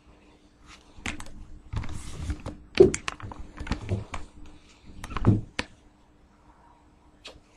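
A quick run of clicks and knocks close to the microphone, like hands handling things or tapping keys, loudest about three seconds in and again just after five seconds, with a brief hiss around two seconds.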